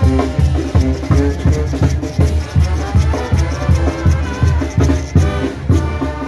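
A Mexican banda, a brass band with tuba, horns and drums, playing live with a steady beat.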